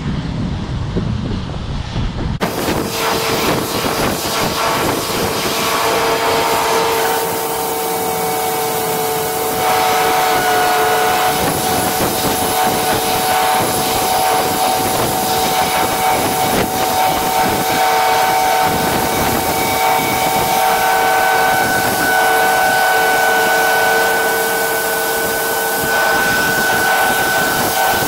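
A low cab rumble gives way, about two seconds in, to a John Deere combine running alongside a grain cart and unloading soybeans through its auger: a steady rushing hiss of grain and wind with several steady machine whines, one higher tone joining about two-thirds of the way through.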